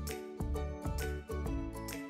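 Light background music with a steady beat, bass notes about twice a second under sustained tones.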